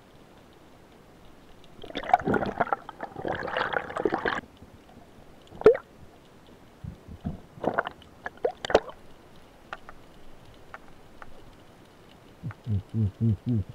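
Underwater gurgling, scraping and knocking as a diver handles a freshly speared fish: two stretches of noisy rustle early on, a sharp knock, then a few short bursts, and near the end four quick low pulses.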